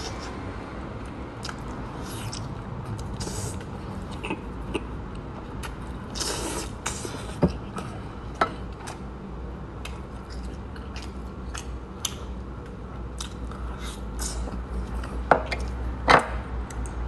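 Close-up mouth sounds of a person eating braised pork knuckle: chewing and lip-smacking with scattered short wet clicks, the sharpest a pair near the end.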